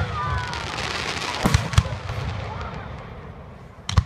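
Aerial fireworks: a shell's burst crackles in a dense spray, with two sharp bangs about a second and a half in and another sharp bang near the end.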